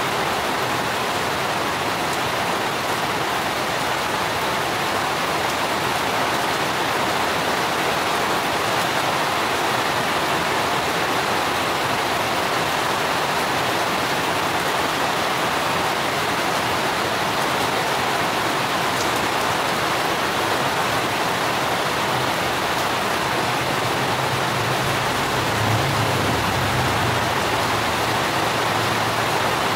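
Steady rain falling on garden foliage and hard surfaces, an even hiss throughout. A low rumble swells and fades again near the end.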